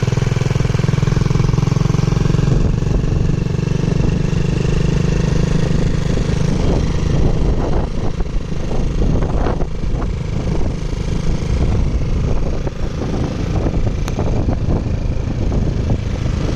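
Honda CG 125's air-cooled single-cylinder four-stroke engine running. The steady note turns uneven in the middle, with irregular sharp ticks, then settles again near the end.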